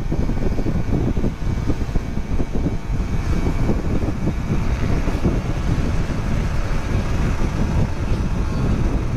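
Motorcycle ridden fast: steady engine and road noise under heavy wind rushing and buffeting on the microphone.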